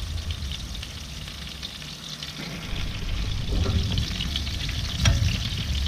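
Flour-dusted fish fillets and tomato slices sizzling in hot oil in a frying pan, a steady crackle of small pops that eases slightly about a second in and then picks up again. A single sharp click sounds about five seconds in.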